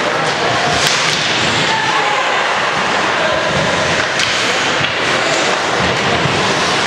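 Ice hockey rink sound during play: a steady wash of crowd noise with scattered shouts, and sharp clacks about a second in and again just after four seconds.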